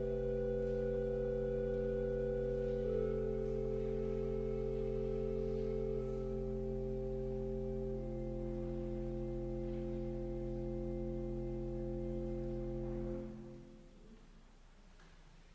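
Pipe organ holding the closing chord of a prelude: a deep sustained pedal note under upper notes that shift a few times. The chord is released about thirteen seconds in and dies away in the church's reverberation.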